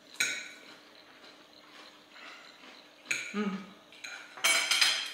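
Metal knife and fork clinking and scraping on ceramic dinner plates while eating, with a sharp clink just after the start and louder scraping near the end.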